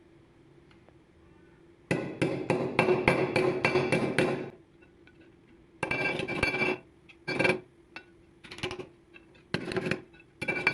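Hammer blows on metal: after a quiet start comes a quick run of about ten strikes, then several short groups of strikes, each with a ringing metallic tone.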